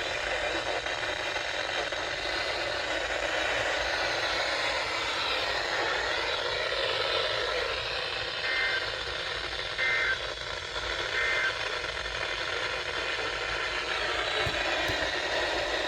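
Radio static hiss. About eight, ten and eleven seconds in come three short two-tone data bursts: an Emergency Alert System SAME header, sent three times to begin an alert.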